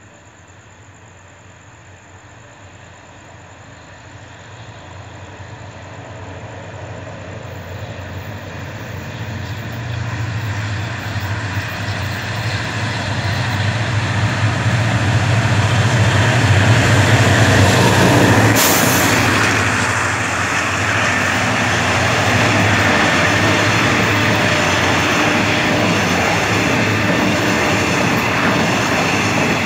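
A diesel-hauled express passenger train running through the station without stopping. The locomotive's engine and wheel noise grow steadily louder for about fifteen seconds and peak as it passes. There is one brief sharp crack, then the steady rumble of the carriages rolling past.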